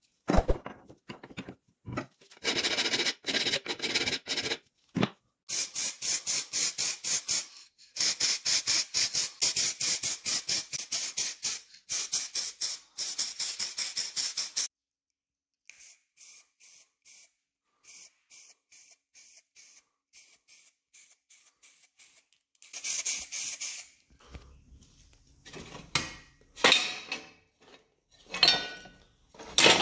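Rapid back-and-forth scraping strokes, about four a second, in runs of a few seconds with short pauses. A quieter stretch of faint strokes follows, then a few louder separate scrapes near the end.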